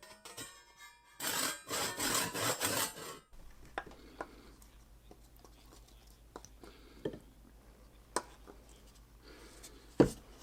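A hand tool worked in rough, rasping strokes on the wooden axe handle for a few seconds, then a few light clicks and a single sharp knock near the end.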